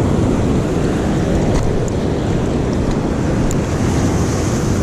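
Surf washing and foaming over shoreline rocks, with wind buffeting the microphone: a steady, loud rushing noise.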